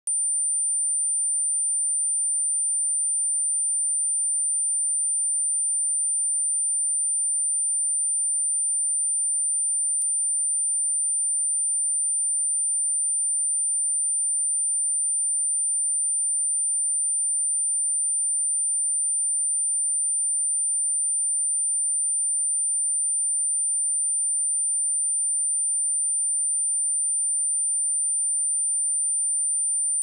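A steady, high-pitched 9151 Hz pure sine tone, electronically generated, held at one pitch and level. It is a test tone for checking speakers and headphones, also played to shake dust and water out of a speaker.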